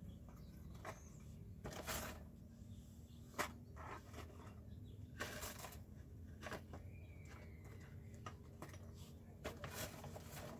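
Small handling noises: light clicks and knocks of metal tongs gripping and tipping small homemade paper and card bins, with brief rustles of paper. The sharpest knock comes about three and a half seconds in.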